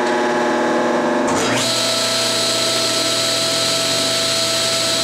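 A General 350 table saw is switched on about a second and a half in. Its motor spins up quickly, then runs steadily with the blade idling, giving a steady whine over a hiss. Before it starts, a steady humming machine is heard.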